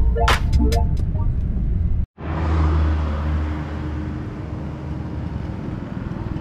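Low rumble of a bus engine heard from inside the cabin, then after a short cut, road traffic: a vehicle's engine and tyre noise going by and slowly fading.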